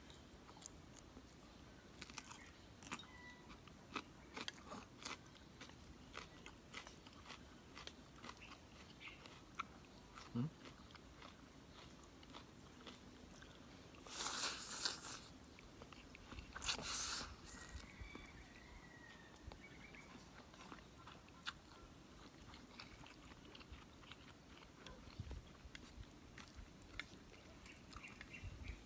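A person eating instant pancit canton noodles with chopsticks: faint chewing and small mouth clicks throughout, with two loud slurps of noodles about halfway through.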